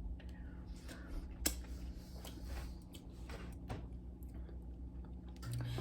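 Soft mouth sounds and small clicks of someone tasting barbecue sauce off a spoon, with one sharper click about a second and a half in. A low steady hum comes on near the end.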